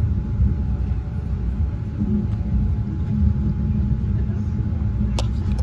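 Cog railway train running uphill, a steady low rumble heard from inside the passenger car, with a light click about five seconds in.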